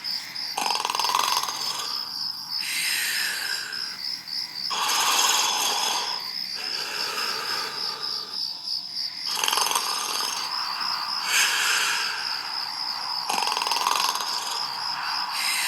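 Steady high cricket chirping with a slow, breathy snoring sound swelling in and out about every two seconds; a few of the swells end in a falling glide.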